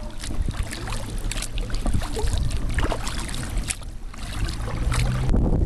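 Kayak paddle strokes, water splashing and dripping off the blades at irregular intervals about a second apart, over a steady low wind rumble on the microphone.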